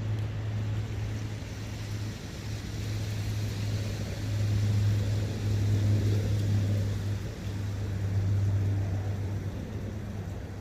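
Forest ambience: wind blowing over a running brook, a continuous rushing hiss with a steady low rumble that swells louder in the middle and eases off near the end.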